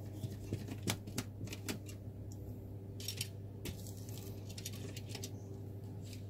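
Small clicks, taps and brief scrapes of a screwdriver and fingers working the cooling fan loose from an opened Dell laptop's chassis, over a steady low hum.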